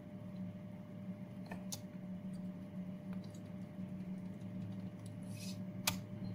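A few scattered computer keyboard key clicks, spaced a second or more apart, over a steady low electrical hum, as a terminal command is edited.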